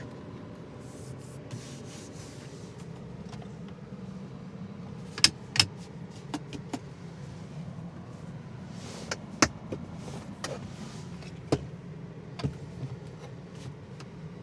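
Sharp clicks and knocks of cabin controls and trim being handled inside a car, about a dozen spread irregularly over a steady low hum. The loudest come about five, nine and a half and eleven and a half seconds in.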